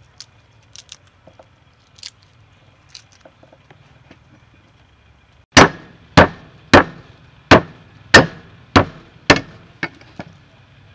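Cleaver's flat striking garlic cloves on a wooden chopping block to crush them: about eight loud smacks, a little under two a second, the last two lighter. Before them, a few light clicks of cloves being pulled off the bulb and dropped on the board.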